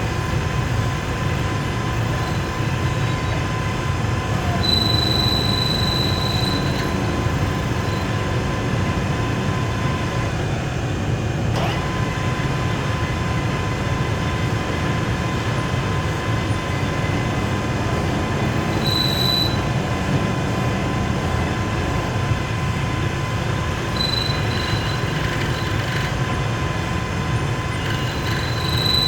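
Lathe running with a steady mechanical hum and a constant whine, broken a few times by a short high-pitched squeal, the longest lasting about two seconds.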